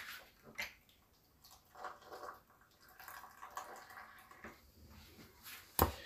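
Faint, quiet background with scattered soft clicks and rustles, and one sharper click near the end.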